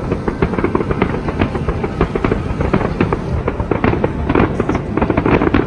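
Fireworks crackling and popping in rapid, dense succession, with music playing underneath.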